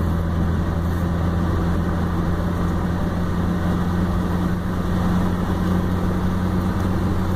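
Steady low hum of a car's engine and road noise, heard from inside the cabin while driving.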